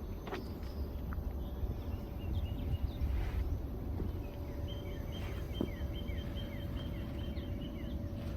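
A small bird chirping in quick runs of short, repeated notes, twice, over a steady low hum.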